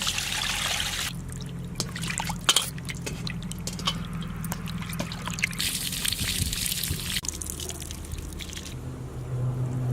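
Water pouring and trickling in two spells, with light clicks and knocks of handling in between, over a steady low hum that gets louder near the end.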